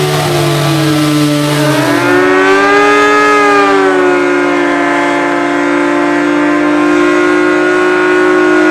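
Motorcycle engines held at high revs: a loud, steady, siren-like note whose pitch drifts slowly up and down. A lower second note stops about two seconds in, leaving one held pitch.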